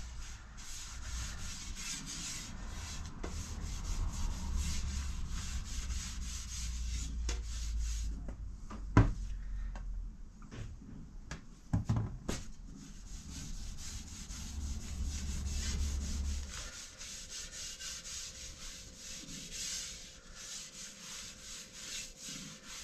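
A cloth rag rubbing oil into a solid cherry canoe paddle blade, a steady scrubbing hiss, while the second coat of oil finish goes on. A few sharp knocks come around the middle.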